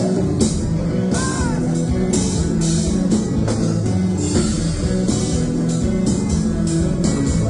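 Haitian konpa band playing, with guitar and drum kit over a steady beat.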